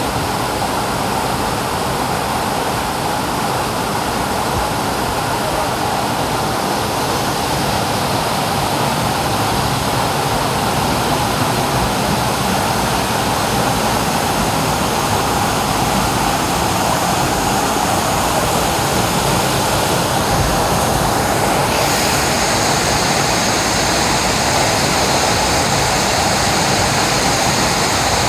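Waterfall's water rushing in a steady, loud hiss. About three quarters of the way through it suddenly turns brighter and hissier.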